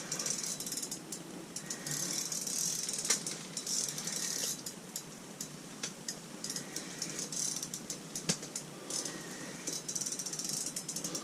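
Fishing reel ratcheting in irregular runs of fine clicks while a big hooked fish is being reeled in.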